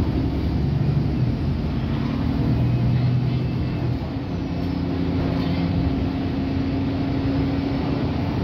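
Cabin sound of an Alexander Dennis Enviro200 MMC single-deck bus under way: its diesel engine and road noise running steadily, the engine note changing to a higher pitch about four seconds in.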